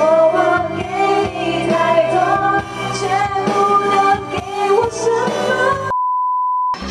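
A woman singing a Mandarin pop song into a karaoke microphone over the karaoke backing track. Near the end the music cuts off and a steady beep tone sounds for about a second.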